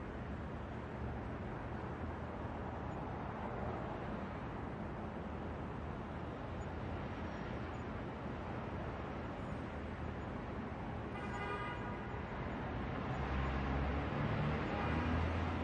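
City street traffic at night, a steady wash of passing cars. About two-thirds of the way through comes a brief pitched tone, and near the end a louder low rumble as a heavier vehicle passes.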